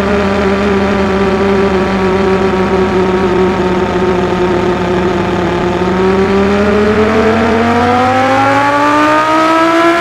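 Synthesised Audi R8 engine-and-exhaust sound from the Krotos Igniter preset, running steadily and then rising in pitch over the last four seconds as the RPM climbs.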